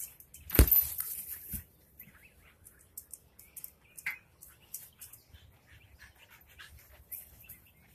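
A soccer ball kicked on a grass lawn: one sharp thump about half a second in, a softer knock about a second later, then faint scattered rustling and scuffing.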